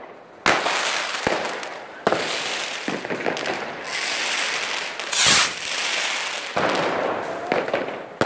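New Year's fireworks and firecrackers going off: a string of about ten sharp bangs at uneven intervals, each trailing off in a long echo, with the loudest burst a little past halfway.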